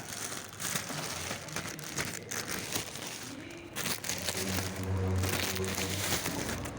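Packaging crinkling and rustling as a new 7PK poly-V drive belt is unboxed by hand, with a steady low hum joining in partway through.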